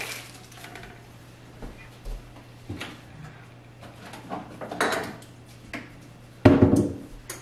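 Kitchen handling sounds: scattered light knocks and clatters of items being moved, then one loud knock about six and a half seconds in.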